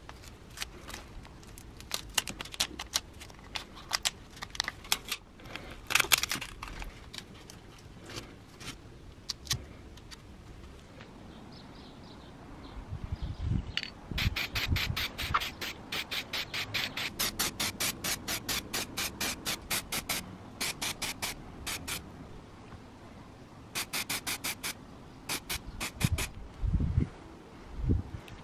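Masking tape and paper being pulled and torn, then an aerosol spray-paint can being shaken, its mixing ball rattling in a fast, even run. A few dull bumps near the end.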